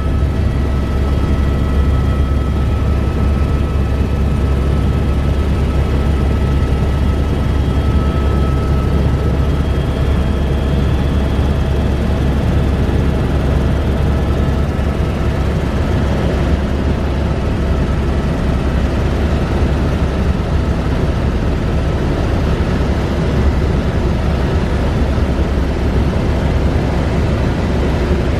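Helibras AS350 B3 Esquilo helicopter in level flight, heard inside the cabin: a loud, steady low rotor drone with a few faint steady whining tones above it.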